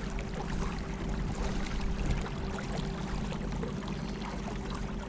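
Water rippling and splashing along a small boat's hull under way, over the steady hum of a battery-powered electric trolling motor.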